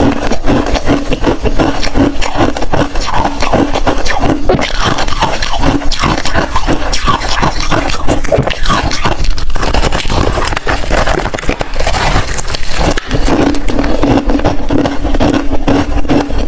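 Close-miked crunching of hard freezer ice being bitten and chewed, a dense run of irregular cracks and crunches without pause.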